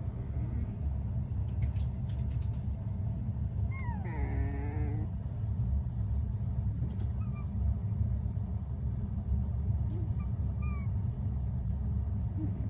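Sleeping corgi puppy whimpering in its sleep: one drawn-out whine falling in pitch about four seconds in, then a few faint short squeaks, over a steady low hum.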